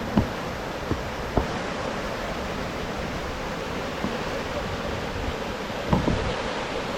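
Steady rush of water from a waterfall, an even noise without pauses. A few short low thumps break through it: one just after the start, two smaller ones around a second in, and a double one about six seconds in.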